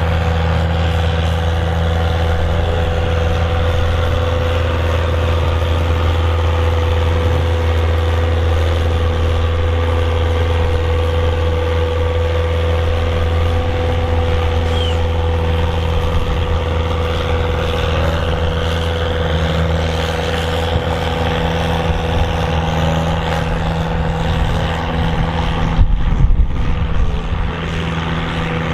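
Valmet 903 tractor's diesel engine running hard under load while pulling a weight sled, a loud, steady note that holds its pitch. Near the end there is a brief burst of louder, rougher low rumble.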